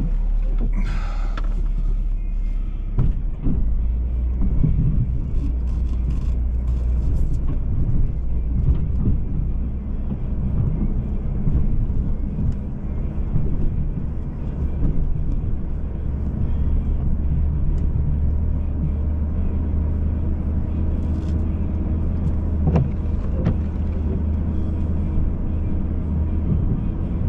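Pickup truck engine running steadily, growing fuller about three and a half seconds in.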